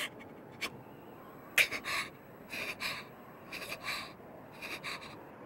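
A person's ragged breathing: four rounds of short, shaky breaths about a second apart, faint.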